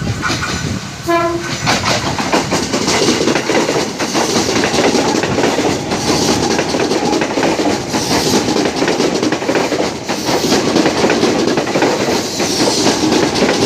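A train passing close by: a brief horn note about a second in, then a loud, continuous rumble with rapid wheel-on-rail clatter. The noise ends abruptly near the end.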